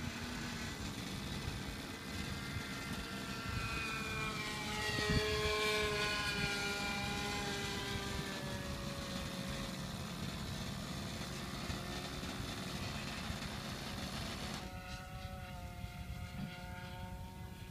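The OS .46 two-stroke glow engine of a radio-controlled model airplane, running at high speed as the plane flies by. It is loudest about five seconds in, and its whine drops in pitch as the plane passes.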